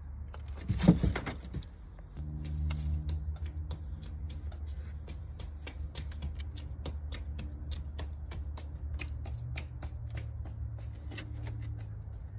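Rabbit biting and chewing a hard round treat: a loud crunch about a second in, then a run of small, irregular crunching clicks.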